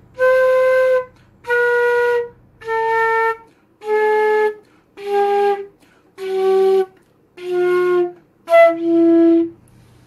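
Concert flute playing a slow descending scale of eight held notes, each about a second long with short breaths between; a brief higher note comes just before the last, lowest note.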